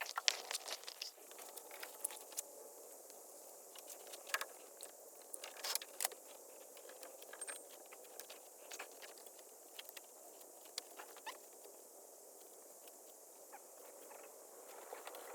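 Faint, scattered light clicks and taps over a low steady hiss, a few louder clicks around the middle.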